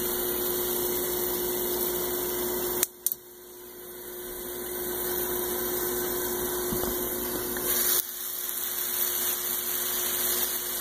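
Steady hiss with a faint low hum from a covered pan of stir-fry cooking on a gas burner, with two sharp clicks about three seconds in.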